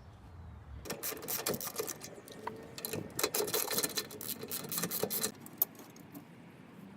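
Cordless power tool running with a fast mechanical rattle for about four seconds, starting about a second in and stopping abruptly.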